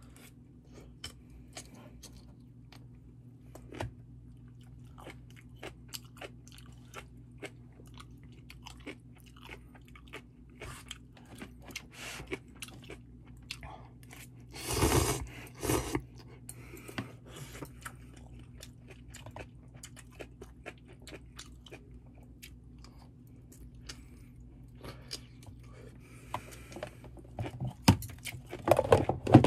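Close-miked chewing of instant ramen noodles and kimchi, with many small wet clicks and crunches. About 15 seconds in comes a loud slurp of noodles. Near the end, metal chopsticks and a pot lid clatter.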